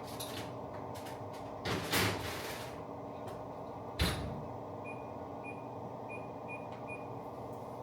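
Oven door opened with a rushing scrape, then shut with a sharp thud, followed by five short electronic beeps from the oven's control panel.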